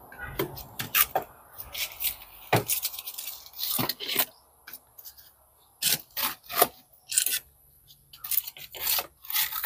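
Dry palm fronds crackling and scraping in short, irregular bursts as they are bent, broken and rubbed against a concrete counter.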